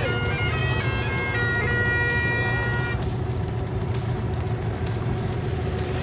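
Small outboard motor running steadily, with wind and water noise. Over the first three seconds, music with held notes plays on top and stops about three seconds in.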